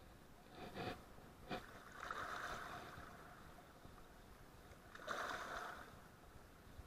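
Fly line being handled at the reel and cast with a fly rod: a few short clicks, then two swishes of about a second each, the second the loudest, over the steady rush of river water.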